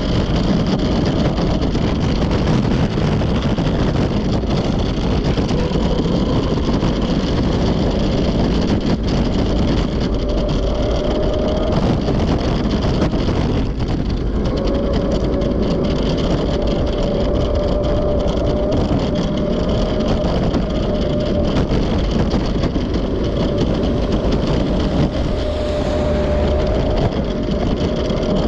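Steady, loud outdoor street noise: a constant low rushing, with wind on the microphone and road traffic, and a faint steady hum from about halfway.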